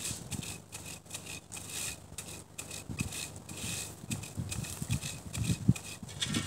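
Dry thatching grass rustling and scraping in repeated swells as a thatcher works it on the roof, with irregular low thumps throughout.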